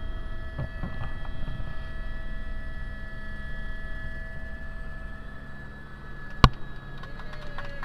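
Helicopter turbine engine running on the ground, heard from inside the cabin as a steady whine of several high tones over a low hum. A sharp click comes about six and a half seconds in, and near the end a fast, even beating sets in.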